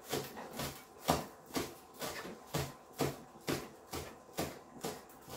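Kitchen knife slicing spring onion into small rings on a cutting board: a steady knock of the blade on the board, about two cuts a second.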